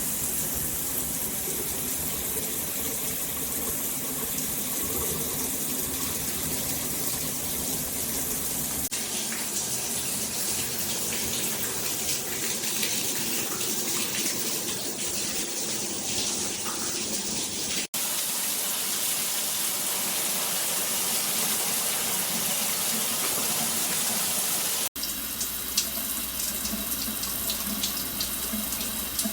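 Water spraying steadily from a G-Promise all-metal shower head, a full even hiss of running shower water. The sound changes abruptly three times, about 9, 18 and 25 seconds in, with a brief dropout at the last two.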